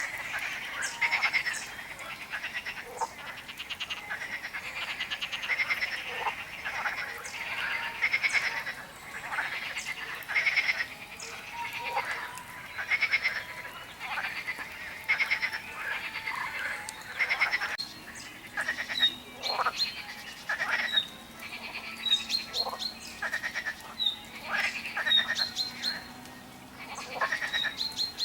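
A chorus of frogs croaking: many short, rapidly pulsed calls overlapping one after another. From about two-thirds of the way in, short high chirps repeat every second or so above the chorus.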